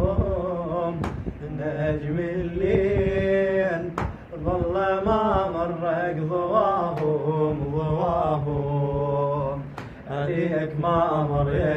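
A solo male voice chants a Shia lament (latmiya) unaccompanied in long, melismatic held phrases, with no reverb or effects. A faint sharp tap is heard about every three seconds.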